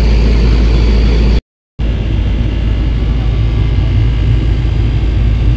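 Sany excavator's diesel engine running steadily with a deep, heavy hum; the sound drops out for a fraction of a second about one and a half seconds in, then the engine carries on.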